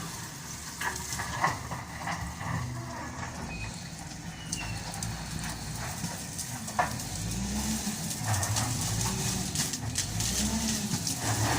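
Diesel engine of an SDLG wheel loader running, revving up and falling back twice in the second half, with scattered clanks and knocks.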